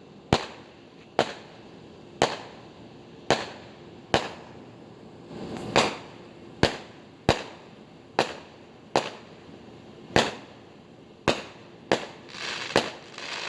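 Fireworks going off: a steady string of sharp bangs, roughly one a second, coming closer together with a denser patch of crackling pops near the end.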